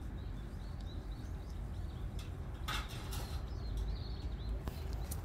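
Quiet outdoor ambience: a bird chirping repeatedly in the background over a low steady rumble, with a few brief rustles about halfway through and near the end.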